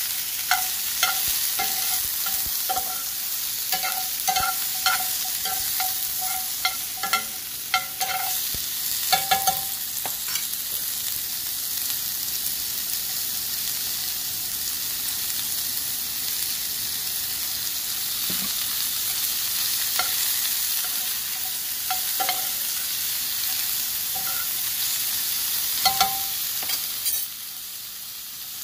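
Green beans, zucchini and tomato sizzling in bacon fat and olive oil in a cast-iron skillet, stirred with a slotted metal spatula that clicks and scrapes against the pan, many times in the first ten seconds or so and a few times later. The sizzle drops off near the end.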